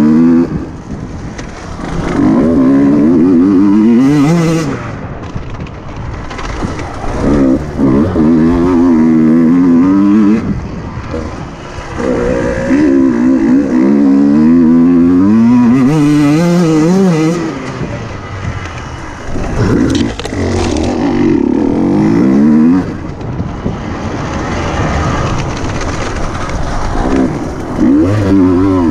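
KTM 150 EXC TPI single-cylinder two-stroke enduro engine being ridden hard on dirt, opened up in about five bursts of acceleration with the pitch climbing through each, then backing off between them.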